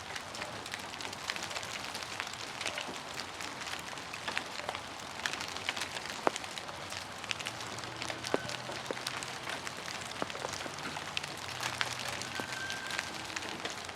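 Melting ice glaze breaking off tree branches and falling in a steady shower, a dense patter of small ticks and cracks like hail, with one sharper crack about six seconds in.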